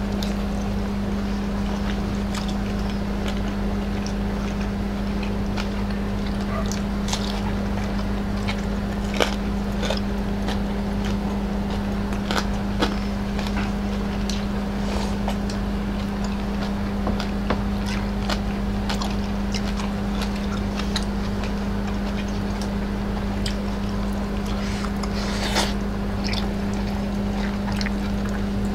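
A steady low electrical hum. Scattered soft clicks of eating and of utensils or dishes are heard over it.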